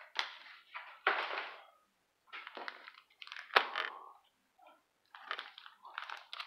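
Foil wrapper of a sealed hockey trading-card pack crinkling as it is picked up and handled, together with cards shuffling, in short irregular bursts with brief pauses. There is a sharp click about three and a half seconds in.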